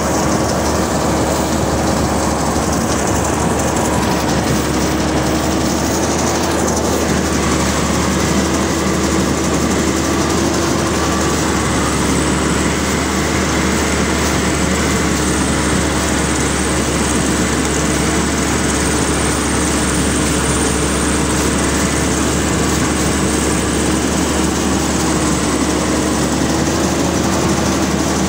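Rice combine harvester running steadily under load as it cuts and threshes rice: a constant engine and machinery drone with a steady hum.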